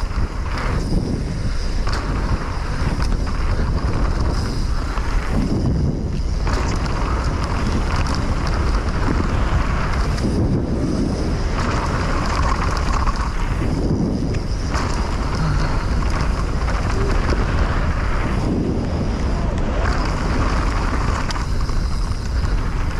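Wind rushing over a camera microphone on a mountain bike riding down a dirt trail. The rush rises and eases every few seconds.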